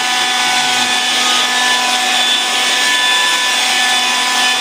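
Swiffer Sweeper Vac's small battery-powered vacuum motor running, a steady, loud whine over a hiss of suction.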